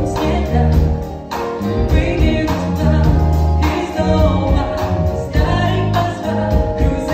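Live band music with a woman singing into a microphone over sustained bass notes and chords.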